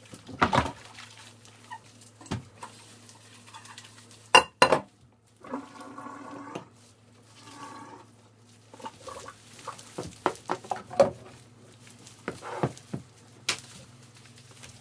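Dishes and utensils clinking and knocking together as a kitchen is cleaned up: a string of irregular clatters over a low steady hum, with a short scraping sound about halfway.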